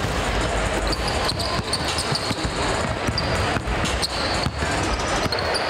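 Basketballs bouncing on a hardwood gym floor during warm-ups, a series of irregular thuds, over a steady murmur of the crowd in a large arena.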